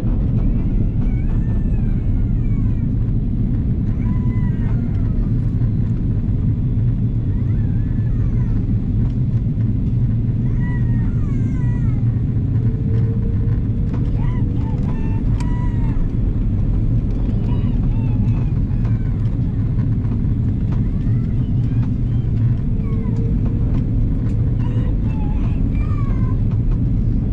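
Steady low rumble of an airliner cabin in flight: engine and airflow noise. Faint voices come and go over it.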